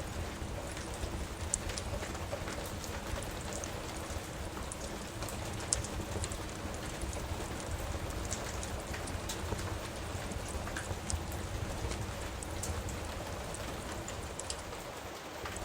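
Steady rain with a wood fire crackling: an even hiss and low rumble of rain, with scattered sharp pops and snaps on top.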